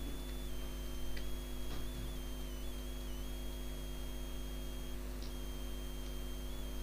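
Steady electrical mains hum with a thin high-pitched whine that wavers slightly in pitch, and a few faint clicks: about a second in, near two seconds, and again past five seconds.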